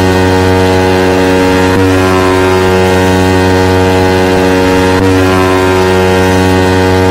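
Loud, sustained electronic bass tone from a car-audio 'racha de som' test track, buzzy with many overtones. The tone shifts slightly about every three seconds.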